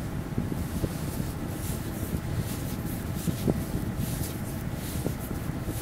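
Steady low mechanical hum with a few faint light clicks as the Rivett 608 lathe spindle is turned slowly for a runout check.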